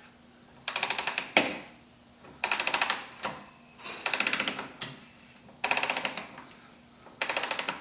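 Ratchet wrench clicking in five quick strokes, each a rapid run of pawl clicks followed by a single sharper click, as the center-lock wheel nut is spun off.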